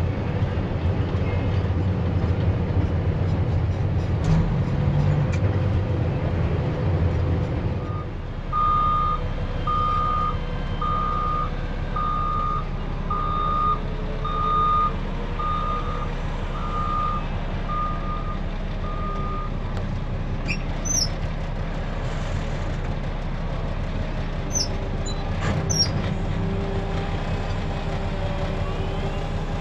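Dump truck's diesel engine running, settling to a lower, steadier idle about eight seconds in. A backup alarm then beeps about a dozen times, roughly once a second, and stops.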